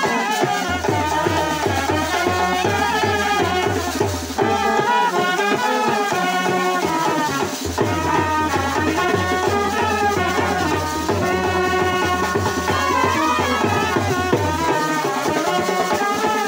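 Live brass band playing, with trumpets and clarinets carrying the melody over snare and bass drums. The low drum beat drops out near the end.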